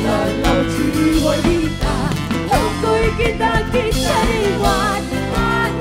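Band music in an instrumental passage: a lead melody bends and slides in pitch over a steady bass line and drums.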